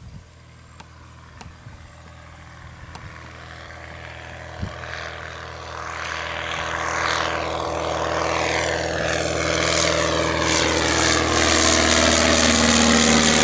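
Van's RV-6A single-engine propeller plane droning at climb power just after takeoff. It grows steadily louder from faint to loud as it comes closer overhead.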